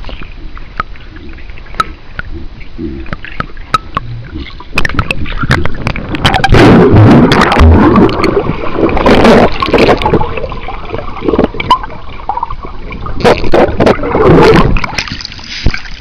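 Pool water gurgling and sloshing around a camera's microphone dipping in and out of the water, with splashing from a dog paddling right beside it. The water noise is uneven, loudest from about six to ten seconds in and again near the end.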